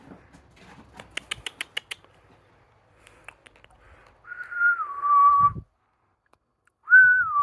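Human whistling: two short whistled calls, each stepping down from a higher note to a lower one, the first about four seconds in and the second near the end. Before them, a quick run of faint clicks comes about a second in.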